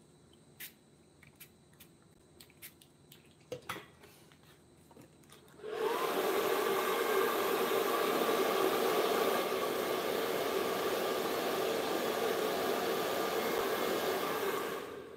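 A few light taps and clicks, then about six seconds in a small electric motor spins up and runs steadily with a rushing, blowing noise for about nine seconds before it stops.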